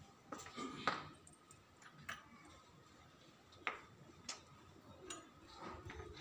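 A handful of light, irregular clicks and taps from small metal hardware (screws, nut, washer) being handled while fitting a satellite dish's LNB holder.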